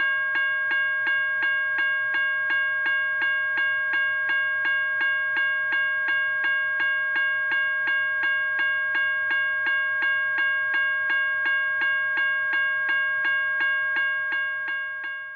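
Recorded railroad crossing bell played from a 12-volt mp3 player through a weatherproof PA horn speaker, the sound of a motion-activated crossing signal going off. It strikes evenly about three times a second, each strike ringing on into the next, and dies away near the end.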